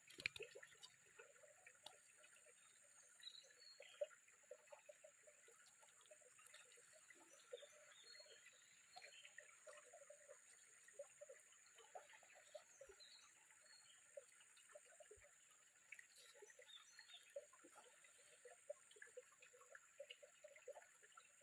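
Faint water trickling, with scattered small splashes and drips, over a steady high-pitched whine.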